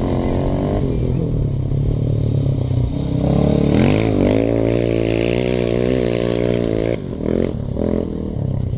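Sidecar outfit's motorcycle engine revving hard under full throttle, its rear wheel spinning in loose dirt. The pitch climbs a little over three seconds in and holds high, then drops off sharply about seven seconds in, followed by a couple of short blips of throttle.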